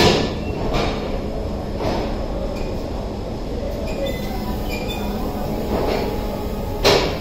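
Indian Railways passenger coaches rolling slowly past along a platform: a steady low rumble of wheels on rail, broken by a few sharp metallic clanks, the loudest right at the start and near the end.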